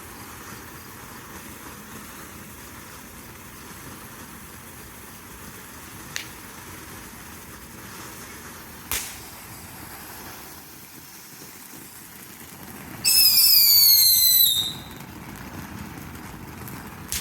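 Fireworks going off: two sharp cracks, then a loud whistling firework shrieking for about a second and a half, its pitch falling as it goes.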